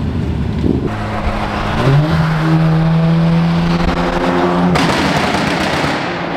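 Car engine heard from inside the cabin while driving through a tunnel. Its revs rise about two seconds in, then hold a steady drone for about three seconds before the sound cuts off abruptly.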